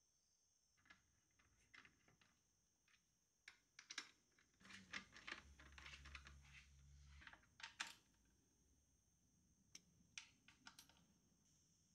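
Faint, irregular clicking of a ratchet socket wrench tightening a scooter's exhaust mounting bolts, the clicks coming thickest between about four and eight seconds in.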